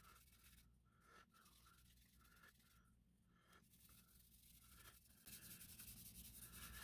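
Very faint rubbing of a polishing cloth over the lacquer-painted plastic body of a model car, in short scratchy strokes over a low steady hiss. The hiss gets a little louder about five seconds in.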